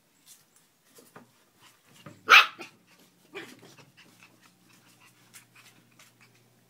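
A dog barks once, loudly and sharply, about two seconds in, with a quieter second call about a second later, while Chinese Crested puppies play on a wooden deck with small clicks of claws on the boards.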